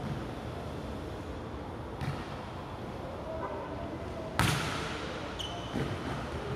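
A ball thudding on a hard surface several times, the loudest hit about four and a half seconds in with a ringing tail, with a brief high squeak shortly after it.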